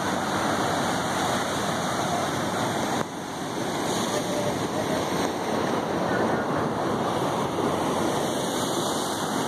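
Ocean surf breaking and washing over lava rocks, a steady rush of water that dips briefly about three seconds in and then picks up again.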